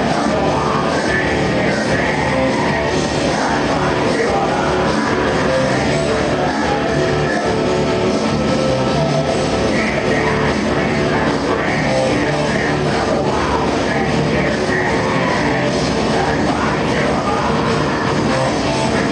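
Live industrial metal band playing, loud, dense and unbroken.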